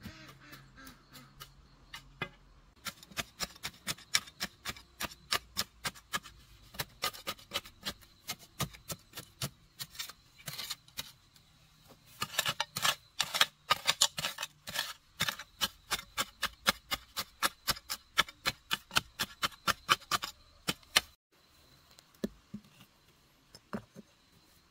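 A wooden stick tamping soil around the base of a newly set wooden post: quick, regular knocks, about three to four a second. They stop about 21 seconds in, and only a few light clicks follow.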